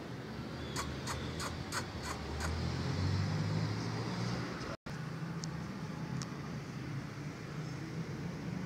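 Steady low outdoor rumble, with a quick run of six light clicks, about three a second, starting about a second in; the sound drops out for an instant near the middle.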